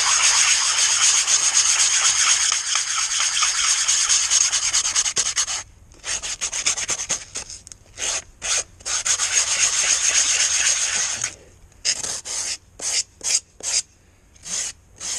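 Hand sanding with 80-grit sandpaper on a sanding block. Long rubbing strokes run for about five and a half seconds, then start again after a brief pause. Near the end they give way to a string of short, separate strokes.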